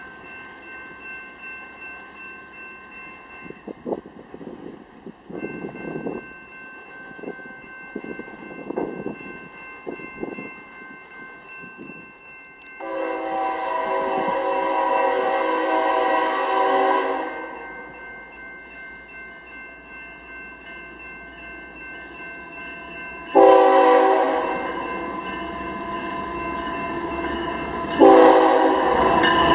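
Diesel locomotive air horn on an approaching BNSF freight train: a long chord-like blast about halfway through, a shorter blast about ten seconds later, and a third blast starting near the end. The locomotives' engines and wheels grow louder as they close in, with scattered clicks and thumps earlier on.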